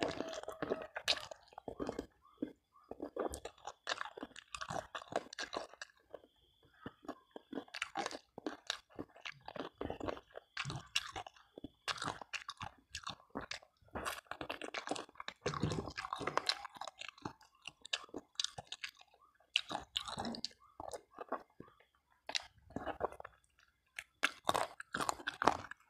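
Close-up mouth sounds of a person eating whole boiled spiced chicken (ayam ingkung) by hand: wet chewing and biting with crunchy bites, in irregular clusters with short pauses.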